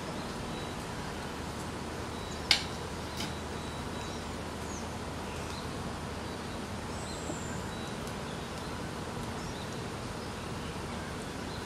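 Steady outdoor background hiss with a few faint, high bird chirps. One sharp click about two and a half seconds in, and a softer one just after.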